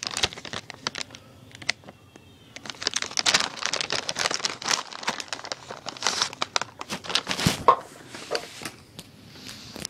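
Plastic bag of hamster treats crinkling in quick irregular rustles as it is handled to get a treat out, starting a couple of seconds in and dying down near the end.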